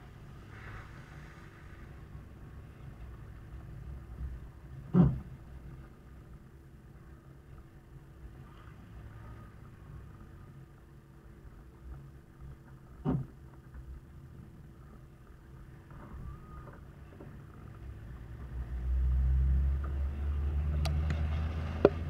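Toyota Land Cruiser HZJ78's 4.2-litre straight-six diesel and the tyres running along a dirt road, with a steady low rumble. There are two sharp knocks about eight seconds apart, and the rumble grows louder for the last few seconds.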